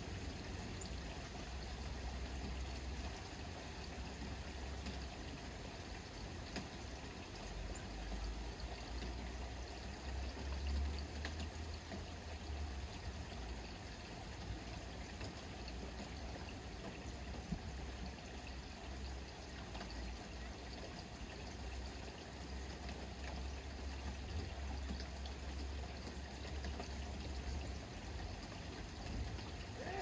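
Steady rain with water trickling and pouring, over a low rumble of distant thunder that swells about ten seconds in.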